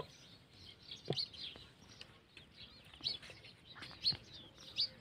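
Birds chirping repeatedly in short, high calls, with a few faint knocks in between.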